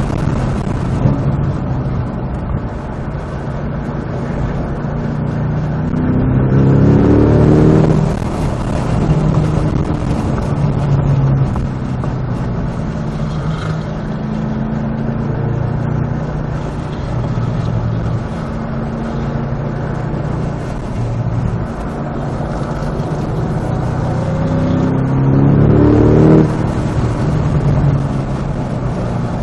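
Cadillac CT5-V Blackwing's supercharged 6.2-litre V8 running hard on track. The revs climb steeply twice, about seven seconds in and again near the end, each time dropping suddenly at a manual upshift, with varying engine load in between.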